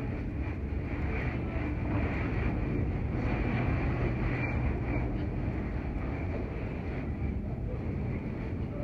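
Steady low rumble and hiss of a large airport terminal hall's background noise, with no single sound standing out.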